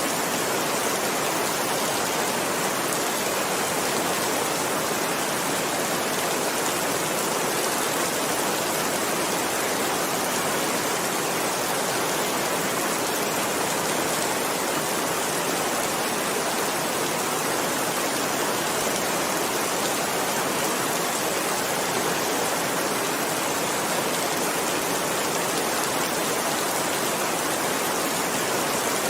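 Heavy rain falling steadily, a dense even hiss with no separate drops or thunder standing out.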